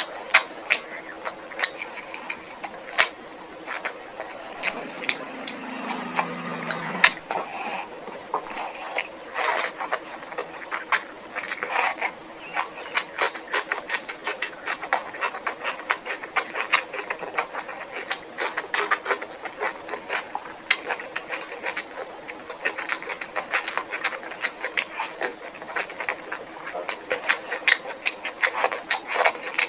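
Close-miked eating: chewing and lip smacking, with a steady run of small wet clicks and crunches.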